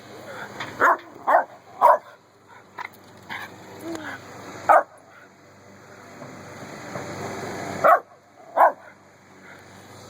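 Miniature schnauzer barking in short, sharp single barks: three in quick succession about a second in, one near five seconds and two near eight seconds. A lawn mower engine runs underneath, growing louder toward the eight-second barks.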